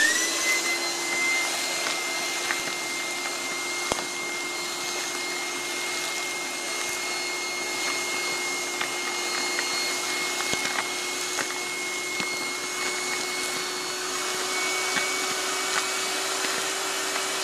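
Shop vac switching on, its motor whine rising quickly and then running steadily as it sucks sand and gravel up a length of PVC pipe sunk into a well hole. Scattered short clicks sound through the run.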